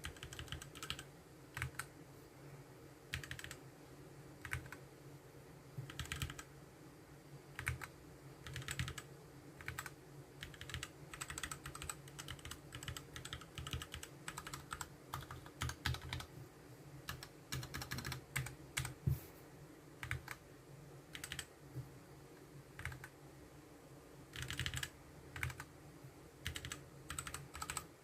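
Typing on a Tecware B68+ mechanical keyboard: irregular runs of key clicks with short pauses between them.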